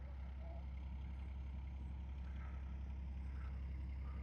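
A steady low engine rumble, with a few faint short high chirps over it.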